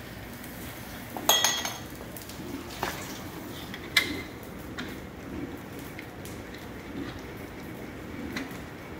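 Metal canning-jar rings clinking and clattering on a wooden floor as they are picked up and dropped: a loud ringing clink about a second in, another about four seconds in, and a few lighter knocks between and after.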